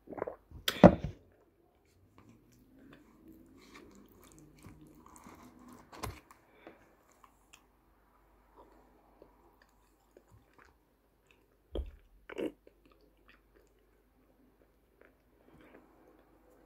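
Close-up mouth sounds of someone eating a wet paste of ayilo (calabash chalk clay): loud biting and squishing in the first second, then soft chewing, a sharp click about six seconds in, and two more loud mouthfuls a little past halfway.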